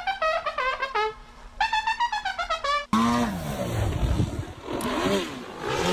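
A trumpet playing a quick run of short, separate notes, cut off about three seconds in. A radio-controlled aerobatic airplane's motor follows, rising and falling in pitch over a broad rushing noise.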